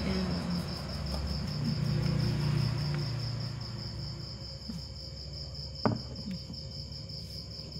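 A cricket chirping steadily, a high, even pulsing of about six pulses a second. A low hum fades out over the first few seconds, and a single short knock sounds about six seconds in.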